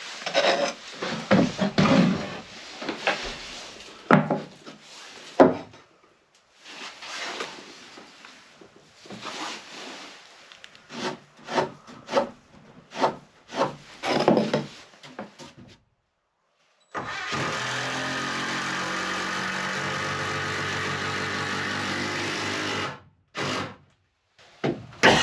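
Saw cutting the wooden roost legs to an angle: a run of irregular rasping strokes and knocks on wood. Near the end a small power tool motor runs at a steady pitch for about six seconds, then stops.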